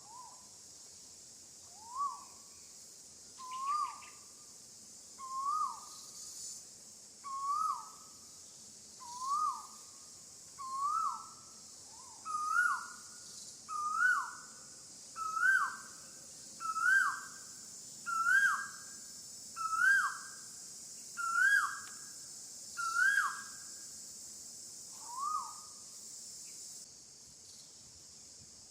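A bird calling a long series of short swooping notes, about one every second and a half, climbing in pitch and loudness as the series goes on. Insects keep up a steady high drone underneath, which stops near the end.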